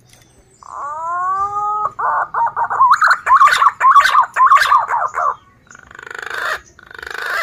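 Male green pigeon (punai daun) singing: a rising whistle, then a long run of rapid, wavering whistled notes, followed by two short raspy bursts near the end.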